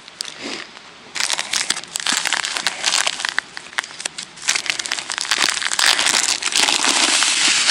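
Plastic groundbait bag crinkling and rustling as it is handled in the hands, starting about a second in and going on with a short break partway through.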